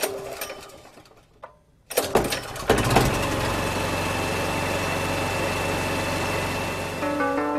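A sudden clunk that fades, then a motor starts up with a few knocks and runs steadily with a constant whine and a low hum. Plucked, harp-like music comes in near the end.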